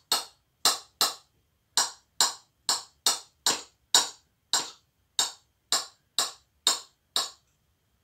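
Kitchen knife chopping boiled potatoes into small cubes on a cutting board: a steady run of sharp knocks of the blade on the board, about two a second, stopping shortly before the end.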